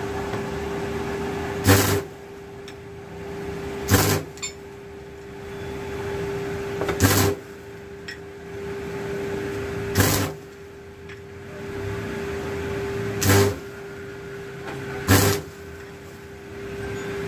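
Arc welder with a stick electrode making short tack welds on steel CV-joint parts: six brief crackling, buzzing bursts of arc, roughly every two to three seconds, over a steady hum.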